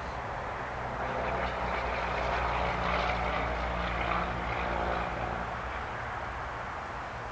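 Tinyhawk 2 Freestyle micro FPV quadcopter's propellers whining as it flies close by. The whine swells over the first few seconds and then fades as the drone moves away, over a low steady hum.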